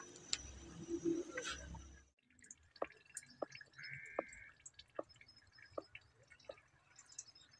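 Faint outdoor ambience of small birds chirping, with soft ticks about every two-thirds of a second and a short higher call about four seconds in. Before that, the first two seconds carry cooking noise at a stove that stops abruptly.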